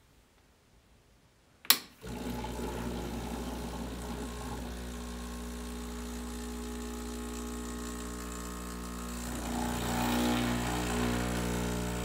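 An espresso machine's pump starts with a click about two seconds in and then runs with a steady hum while pulling a shot through a bottomless portafilter. The hum gets somewhat louder and fuller near the end as the extraction builds.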